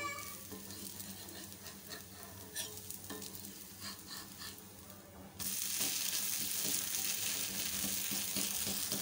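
A spatula scraping and clicking under a millet dosa on a hot, oiled dosa griddle, then about five seconds in a loud, steady sizzle starts suddenly as the dosa is flipped and its uncooked side meets the hot pan.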